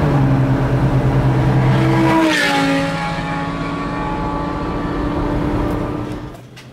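A vehicle's engine running while driving at road speed. Its steady note drops in pitch about two seconds in, as if shifting up, then holds lower and fades near the end.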